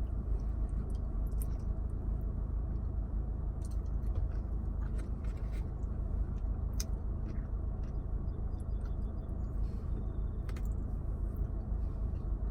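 Eating sounds: faint scattered clicks and scrapes of utensils and chewing over a steady low rumble.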